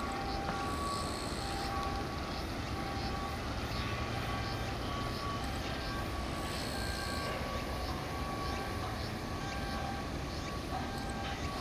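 Steady low rumble of background noise, with short high-pitched tones repeating over it every second or so.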